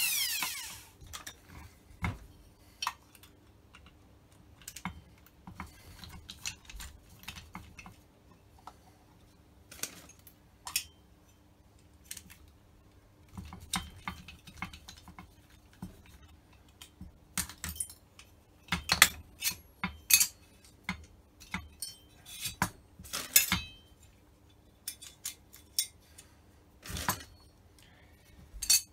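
Scattered light clicks, clinks and knocks of metal carburettor parts and hand tools being handled and taken apart on a workbench, irregular, with a few louder knocks in the second half.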